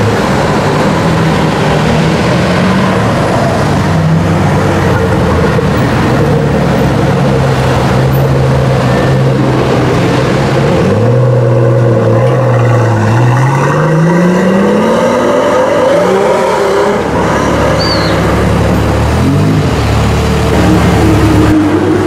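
Pagani Huayra's twin-turbo V12 running at low revs, then about halfway through its note climbs steadily as it accelerates. Near the end a deeper, lower engine tone takes over.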